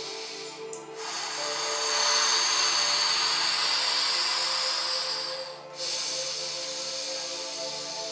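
A man's forceful, vigorous breathing: one long hissing breath of about four seconds, a short break, then another long breath, pushed hard with the abdomen, diaphragm and ribs as in a yogic oxygenating breath. Soft background music with sustained tones runs underneath.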